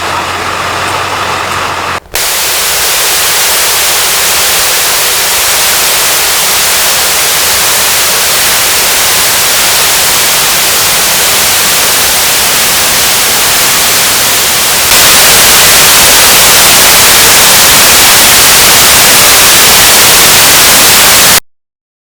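Loud, even static hiss like white noise. It starts abruptly about two seconds in, steps louder about two-thirds of the way through and cuts off suddenly just before the end. Before it comes about two seconds of an engine idling steadily.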